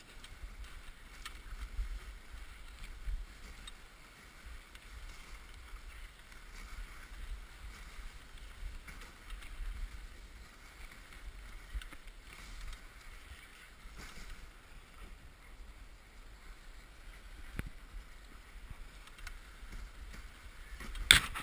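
Dog sled runners sliding over snow behind a trotting team: a steady hiss with a low rumble and scattered small clicks and knocks from the sled, a few louder knocks right at the end.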